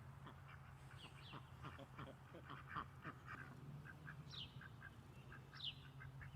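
Ducks quacking softly in a quick run of short calls, with a few higher, falling notes from another bird, all faint over a steady low hum.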